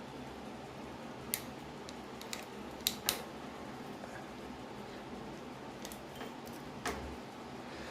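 A few sharp clicks and taps of a plastic hose coupling being fitted onto a water tap, the washing machine's inlet hose being connected, over a low steady hum.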